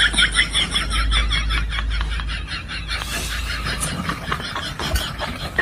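High-pitched, rapid, rhythmic laughter, a comic sound effect, with the pulses giving way about three seconds in to a looser, noisier stretch.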